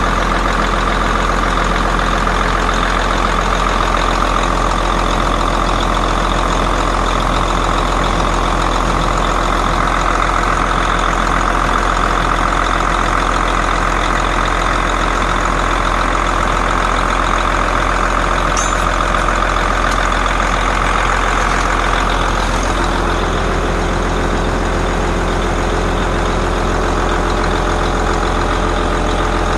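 Komatsu PC300-7's six-cylinder 6CT diesel engine running steadily; its tone shifts slightly about 22 seconds in.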